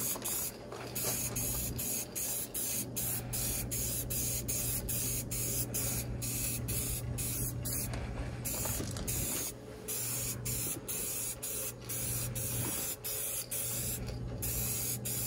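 Aerosol spray paint can hissing as a first coat is laid on, cut off briefly again and again as the nozzle is let go between strokes.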